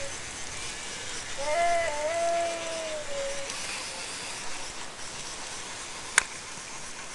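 PLEO robot dinosaur giving one animal-like call through its speaker, about a second and a half in, a tone that steps up, holds and slowly falls over about two seconds. A single sharp click follows near the end.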